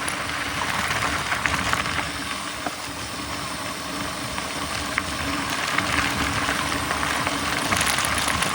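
Mountain bike rolling over a rough trail: steady tyre and wind noise with many small rattles and clicks from the bike.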